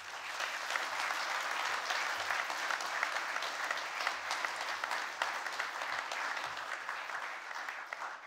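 A congregation applauding: many people clapping together, dense and steady.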